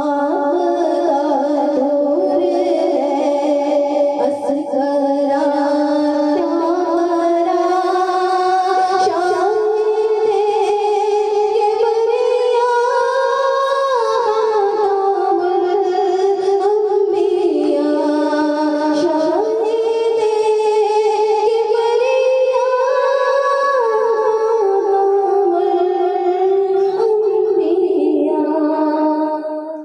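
Woman singing an Urdu naat into a handheld microphone: a slow, gliding melody of long held notes.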